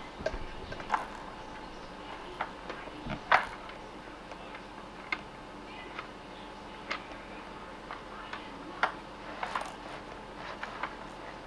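Irregular light clicks and taps of small plastic toys knocking on a baby walker's plastic tray as a baby handles them. The loudest tap comes about three seconds in.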